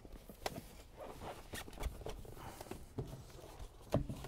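A foam-backed floor liner sheet being pushed, folded and smoothed by hand against the truck's floor, with faint scuffing and rubbing and a few soft knocks. The loudest knock comes near the end.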